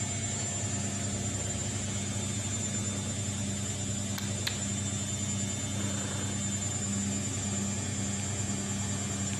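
Domestic tabby cat purring steadily, close to the microphone. Two faint clicks come about four and a half seconds in.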